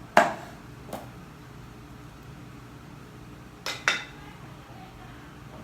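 Sharp clanks of metal kitchenware or a blade knocking against a hard surface: one loud strike near the start, a lighter one about a second later, and a quick pair near the end.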